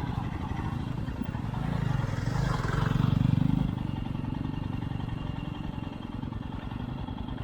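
Motorcycle engine running at low revs with a steady fast pulsing, swelling louder for about a second and a half near the middle as it is throttled up, then settling back.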